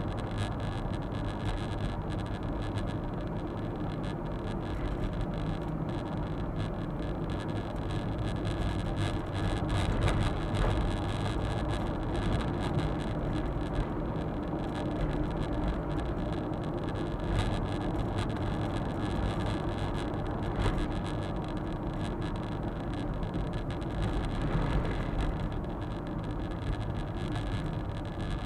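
Suzuki Super Carry kei truck heard from inside the cab while driving: its small three-cylinder engine runs steadily under road and tyre noise, with a few faint knocks from the cab.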